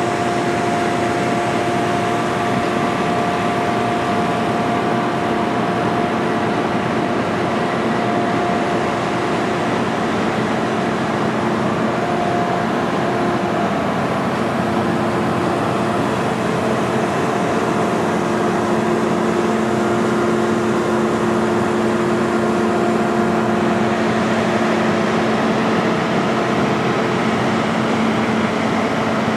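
Diesel engines of heavy rescue fire trucks running steadily as the trucks drive slowly past, with a steady engine hum whose pitch shifts as one truck gives way to the next.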